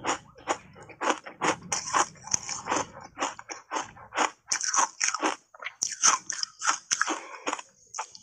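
Refrozen ice coated in matcha powder being bitten and chewed: a steady run of sharp crunches, about three a second, with a fresh bite taken near the end.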